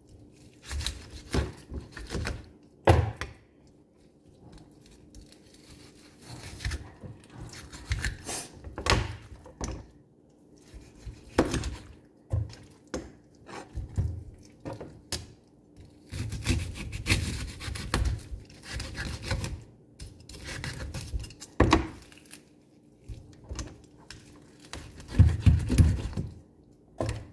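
A knife cutting up raw chicken on a plastic cutting board: irregular thuds and knocks of the blade against the board, in short clusters, with the meat being handled between cuts.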